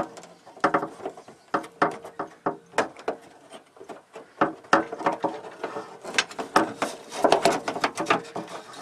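Irregular clicks, taps and knocks of the door lock mechanism, handle and metal door parts being handled and worked loose inside a van door.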